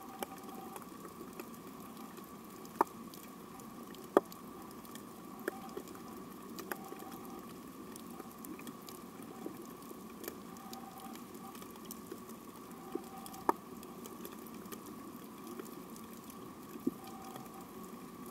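Underwater ambience of a shallow coral reef: a steady hiss with scattered sharp clicks and pops, four of them much louder than the rest. Short faint tones recur every second or two.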